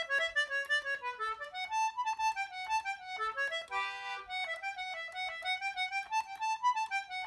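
A lively jig played solo on one melody instrument: quick running notes, with one note held briefly about four seconds in.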